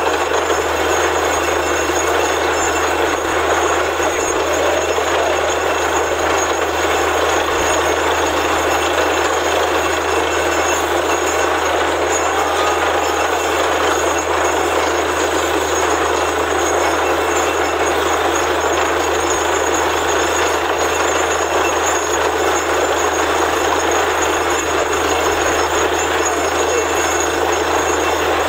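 Borewell drilling rig running steadily: a continuous, loud, even machine noise that does not change.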